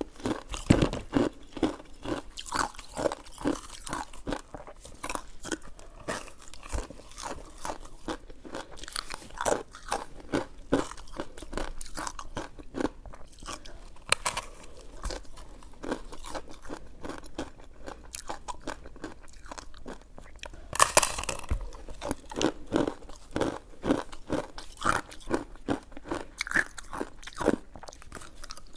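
Close-miked chewing of coconut sticky rice cake: a steady run of short, wet mouth clicks and smacks as the soft, chewy rice is eaten. One louder, longer noisy sound about three quarters of the way through.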